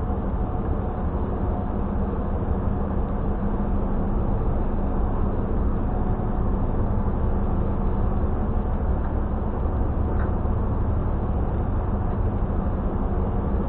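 Car ferry's engines running with a steady low drone and a constant hum.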